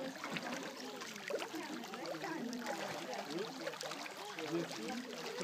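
Several people talking at once in an indistinct, overlapping chatter.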